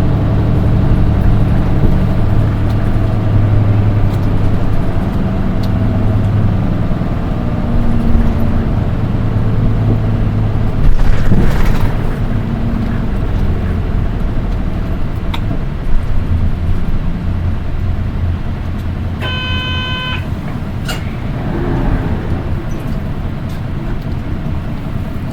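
Nissan Diesel Space Runner RM820 city bus heard from inside while under way: its diesel engine pulls and eases off as it runs through the gears, over steady road noise. This bus's engine gives off a shrill, high-pitched note that the operator's other RM820s lack. A short, pitched electronic tone sounds about three-quarters of the way through.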